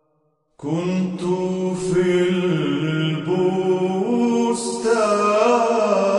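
Chanted vocal music begins about half a second in, after a brief silence: slow, held sung notes that move in steps from one pitch to the next.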